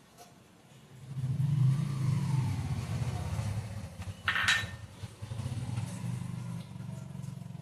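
A low engine rumble, like a motor vehicle running close by, rises about a second in and continues steadily. A short, sharp ringing clink sounds about four and a half seconds in.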